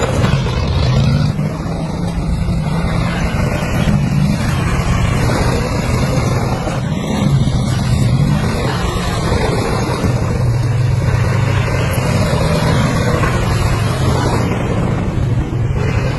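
Heavy machinery's engine running steadily at a low, even hum, with a noisy rumble over it.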